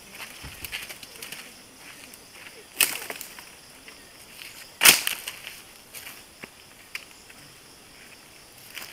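Two sharp knocks, about three and five seconds in, the second the louder, with a few small clicks between, over a faint steady high drone of night insects.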